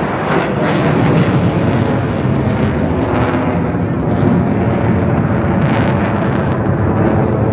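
Loud, deep, steady rumble of an RAF Eurofighter Typhoon's twin jet engines as the fast jet pitches up and climbs steeply in front of the crowd.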